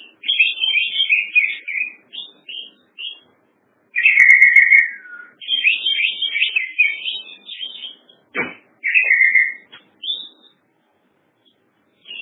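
Songbird singing in bursts of rapid twittering, chirping phrases with short pauses between them, and one sharp downward sweep about eight seconds in.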